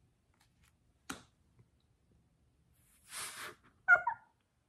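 A light click about a second in, then near the end a sharp gasp and a short, high-pitched squeal of surprise, muffled behind a hand.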